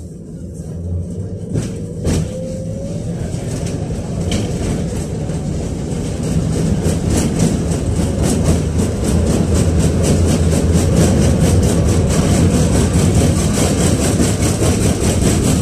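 Interior running noise of a KTM-5 (71-605A) tram: low rumble of steel wheels on the rails and the DK-259 traction motors, growing steadily louder as the car gathers speed, with a couple of sharp knocks about two seconds in.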